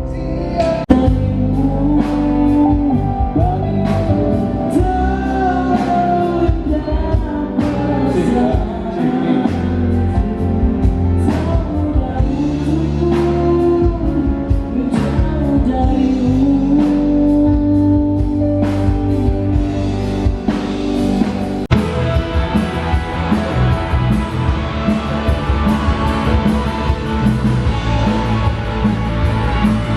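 A pop-rock band playing a song at sound check, with a sung lead vocal over drums and bass. About twenty-two seconds in, the music changes abruptly and grows fuller.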